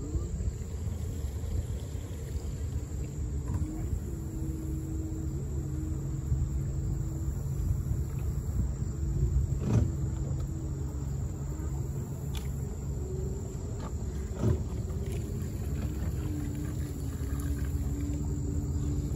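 A boat's motor idling with a low, steady hum that shifts slightly in pitch now and then, over a constant low rumble. A few sharp clicks and knocks cut through, the loudest about halfway through and again a few seconds later.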